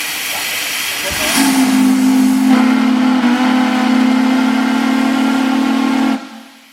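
Steam hissing, then about a second and a half in a steam whistle opens and sounds a loud, steady low chord for about five seconds before cutting off suddenly.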